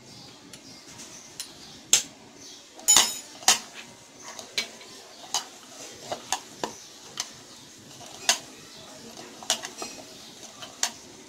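Metal bangles and a bracelet clinking irregularly against a bowl as hands knead mashed potato and grated paneer, about a dozen sharp clicks, the loudest a couple of seconds in.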